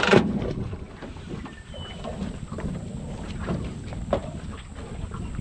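Anchor chain clattering over the bow of a small boat as the anchor is dropped, loudest at the very start. Then the rope pays out over the bow with quieter wind noise on the microphone and a few soft knocks.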